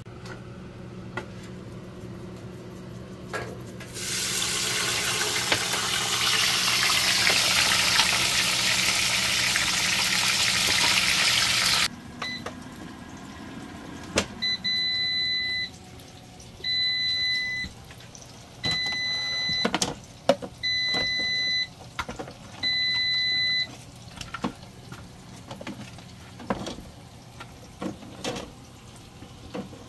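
A loud steady hiss for about eight seconds over a low hum, then a PowerXL air fryer oven beeps five times, each beep about a second long and two seconds apart: its end-of-cooking alert.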